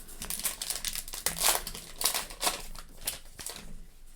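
Crinkling of a trading card pack's wrapper as it is handled and torn open, in a run of short rustles.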